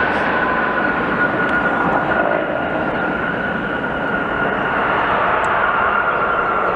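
Jet engines of an Airbus A330-200 airliner (Pratt & Whitney PW4000 turbofans) at low landing thrust as it touches down: a steady rushing noise with a high whine that sinks slightly in pitch.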